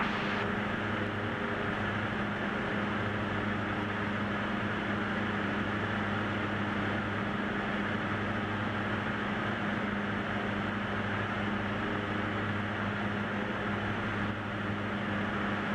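Single-engine light aircraft's engine and propeller droning steadily in flight, heard inside the cockpit: a constant low hum under an even hiss, dipping slightly in level near the end.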